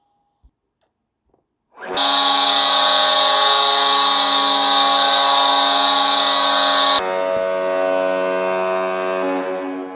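Hockey arena goal horn played back from a goal horn app: after a few faint clicks, a loud, deep, many-toned horn blast starts about two seconds in, drops suddenly in level about five seconds later and fades out near the end.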